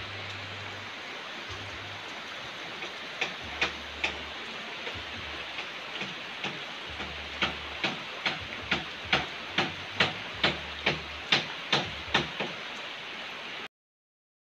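Heavy rain falling steadily, with sharp drips tapping close by, starting a few seconds in and settling to about two a second. The sound cuts off suddenly near the end.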